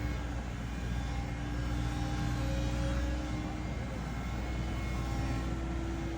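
CAT 315 excavator's diesel engine running steadily with a droning hum and steady whine, the pitch stepping up slightly about four seconds in.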